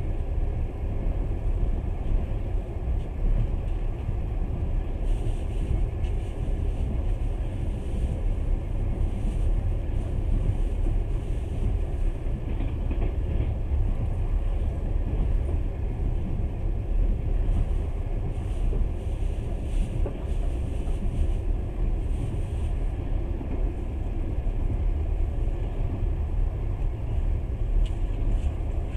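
Passenger train running along the line, heard from inside the carriage: a steady low rumble from the wheels and carriage.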